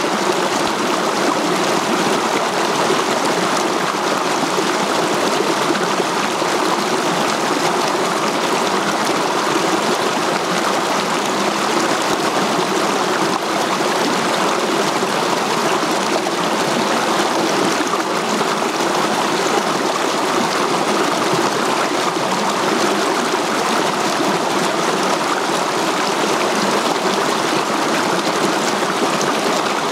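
A rocky mountain stream rushing over small cascades between boulders, a steady sound of flowing, splashing water that does not change.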